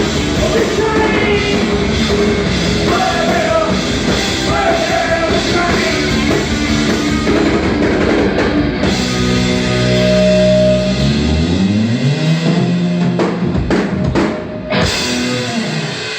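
Live rock band playing with drums, guitar and vocals. Partway through, the full playing gives way to held, ringing guitar notes that slide in pitch, with a few last hits as the song ends.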